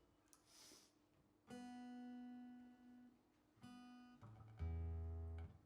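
Acoustic guitar strings plucked singly, each note left to ring and fade, with a lower note near the end the loudest. This is typical of a guitarist checking the tuning between songs. A short breathy hiss comes about half a second in.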